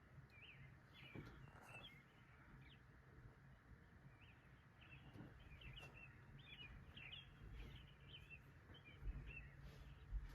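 Faint, scattered bird chirps, many short calls at irregular intervals, over a low steady background rumble.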